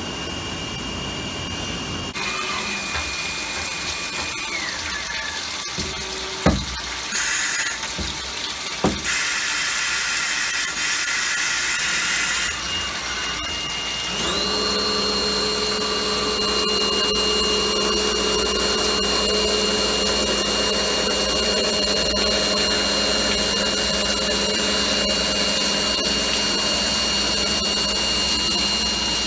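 Star SST-16 CNC Swiss-type lathe working through a cycle on stainless steel tubing: a whine whose pitch falls about four seconds in, two sharp clicks, bursts of hiss, then from about halfway a steady high whine as the spindle holds speed with cutting fluid spraying.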